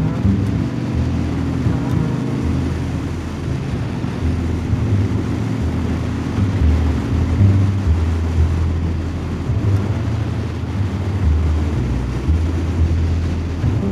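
Motorcycle engine running steadily at cruising speed, a deep note with a rushing wind noise over it.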